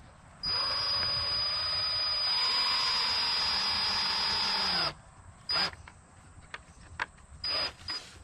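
Cordless drill driving a screw into a 2x4, its motor running steadily with a whine for about four seconds, then dropping in pitch as it slows and stops. Two short, brief noises follow.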